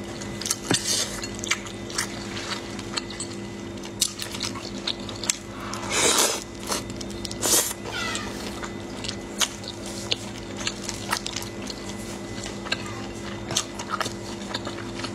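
Close-up eating sounds of soft, saucy meat: wet lip smacks and chewing clicks scattered through, with a louder, longer slurp about six seconds in, over a steady low hum.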